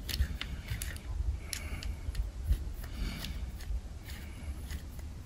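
Hex key turning screws out of a bicycle kickstand adapter: scattered small metallic clicks and scrapes.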